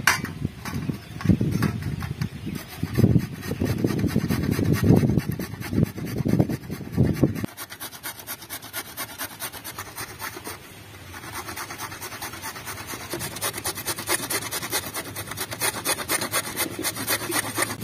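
Carrot being grated on a stainless-steel box grater: rapid scraping strokes that rasp steadily from about eleven seconds in. Before that, a low rumble in uneven bursts lasts about seven seconds and then stops.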